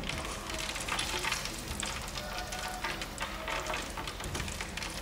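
A crumb-coated chicken drumstick deep-frying in hot oil: a steady sizzle with many small crackles and pops.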